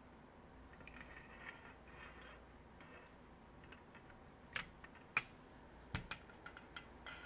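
Light scraping and small metal clicks as steel parts are worked into a CO2 air rifle's tube. In the second half come a few sharp separate clicks, one with a dull knock as the tube is stood on end on the bench.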